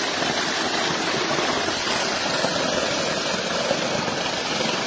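Steady rush of water from fountain jets and a fast, shallow flow running over a pebble bed.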